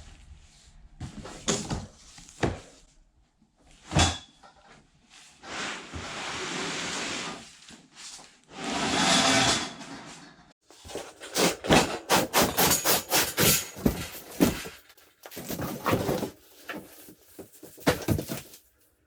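A large cardboard box being unpacked: scattered knocks, with a sharp one about four seconds in, then two long rasping sounds of about two seconds each as cardboard is torn or dragged. In the second half comes a dense run of rapid rustling and clicking as the flip-over fish house in its sled is worked out of the box.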